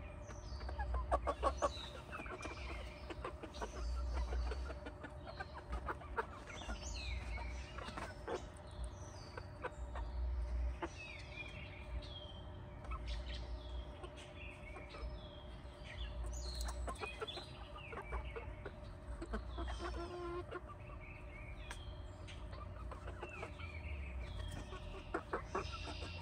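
Young backyard hens clucking softly and giving many short, falling chirps as they perch and settle, with a low rumble coming and going underneath.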